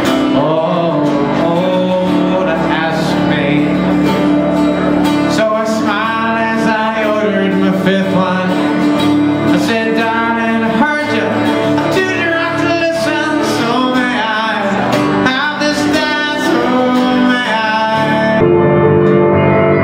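A song played live by an acoustic trio: acoustic guitar, keyboard and a small plucked string instrument, with singing. About 18 seconds in, it cuts abruptly to a different passage led by strummed acoustic guitar.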